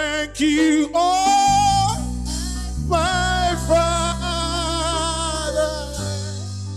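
Gospel worship music: a singer holds long, wavering notes over sustained keyboard and bass chords.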